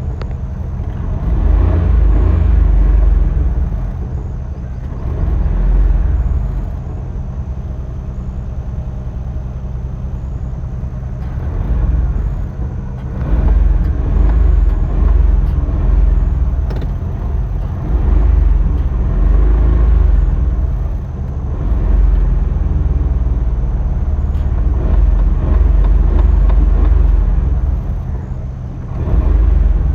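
Old Maruti car's engine revved again and again, swelling for a few seconds at a time and falling back towards idle between revs.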